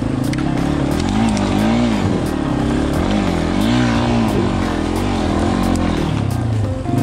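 Yamaha XT250's single-cylinder four-stroke engine running under the rider, its revs rising and falling over and over as the throttle is worked.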